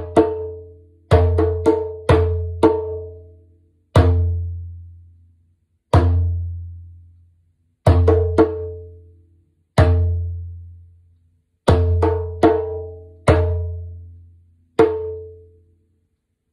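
Meinl djembe played with bare hands: a repeating pattern of deep, booming bass strokes, each followed by a few sharper, higher tone strokes, coming about every two seconds. The last stroke rings out near the end.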